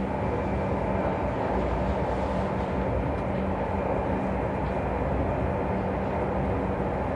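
Electric passenger train running steadily: a constant rumble with a steady low hum and a faint high whine, unchanging throughout.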